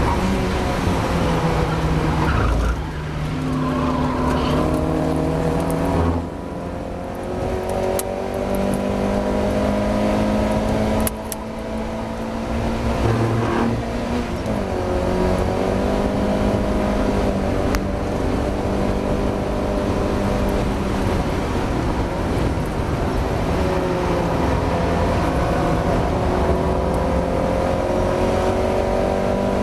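Mazda MX-5's four-cylinder engine under race load. Its pitch climbs and falls as it accelerates and brakes, with sudden drops in revs at gear changes about 3, 6, 11 and 14 seconds in.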